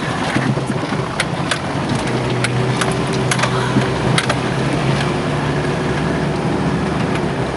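4x4 vehicle engine running steadily, with scattered sharp clicks and knocks over it.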